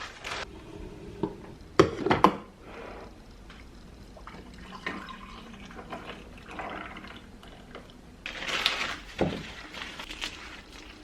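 Kitchen handling sounds: a few sharp knocks of objects set down about two seconds in, and a short splash of liquid being poured or running near the end, closed by another knock.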